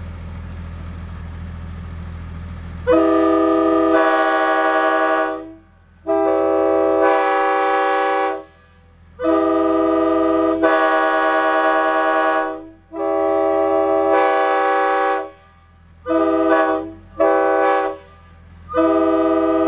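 Nathan K3L three-chime air horns, a wide-font and a narrow-font, sounding a chord in turn in a horn duel. The blasts start about three seconds in: several long blasts with short gaps, two short blasts near the end, then another long one.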